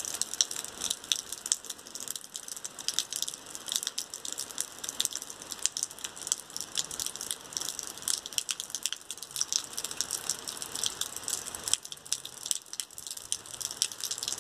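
Rain falling, heard as a dense, irregular crackle of drops striking close by.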